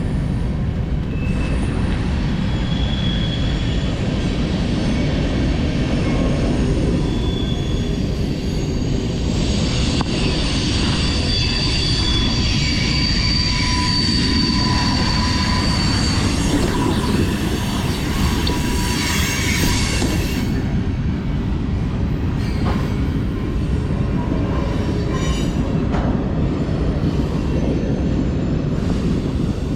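BMX bike rolling over skate park concrete, a steady rumble of tyres throughout, with thin high squeaks coming and going around the middle.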